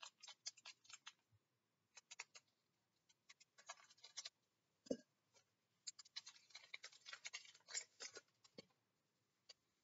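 Faint, scattered crinkles and crackles of a Pokémon booster pack's foil wrapper being handled and torn open with gloved hands.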